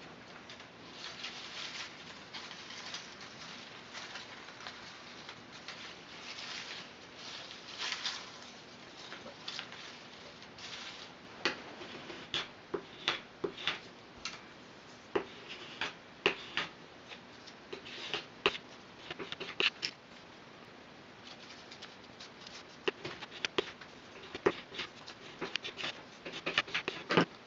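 Dry flattened barley straw strips rustling and crackling as they are handled and sorted by hand. About halfway through it turns into a run of sharp, irregular clicks and taps as strips are picked up and pressed flat against a hard marble board.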